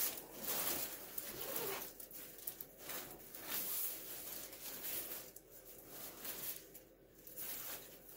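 Rustling and crinkling of plastic packaging and a nylon fabric pouch being handled and pulled open, in irregular bursts that fade down around five to seven seconds in.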